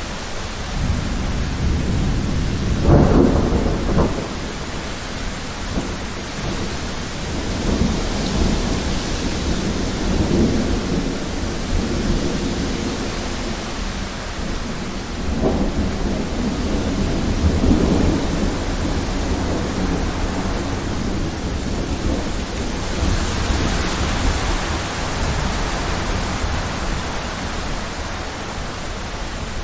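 Thunderstorm: steady heavy rain with rolling thunder, the loudest peal about three seconds in and more rumbles through the middle. The rain hiss swells for a few seconds near the end.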